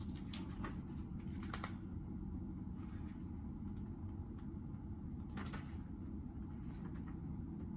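A few short rustles and light clicks of cosmetic packaging being handled, over a steady low room hum.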